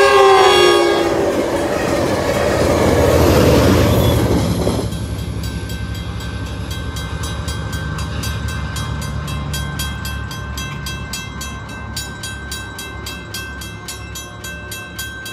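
A passing Metrolink commuter train: the tail of its horn blast drops in pitch as the locomotive goes by, then the train rushes past loudly for several seconds and cuts off sharply about five seconds in. After it has gone, a dull, rapid ticking at about three strokes a second keeps on, slowly fading. This is typical of a 'dead' crossing bell that only clicks instead of ringing.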